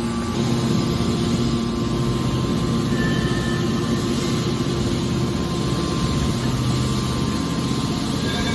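A hydraulic metal baler running: a steady, loud industrial drone with a constant low hum under a dense mechanical clatter.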